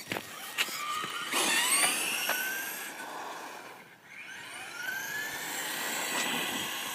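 RC car's motor whining, rising in pitch as the car speeds up, easing off about halfway through, then rising again.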